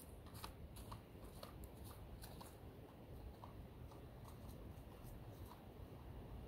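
Faint footsteps crunching on dry leaf litter and twigs: a scatter of soft crackles, thicker in the first couple of seconds, over a low steady rumble.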